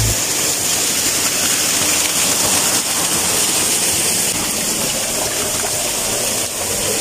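Small waterfall cascading over rocks: a steady rush of falling and splashing water.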